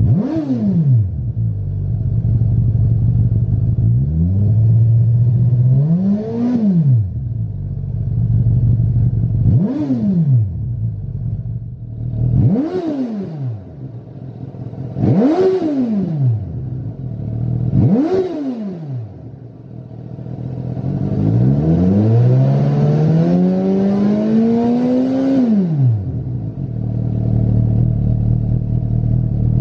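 Suzuki GSX-S1000 inline-four engine idling and being revved through its exhaust, first the stock silencer and then a Lextek SP8C carbon aftermarket silencer. Six quick throttle blips rise and fall back to idle, then near the end comes one longer rev that climbs steadily for about four seconds before dropping back.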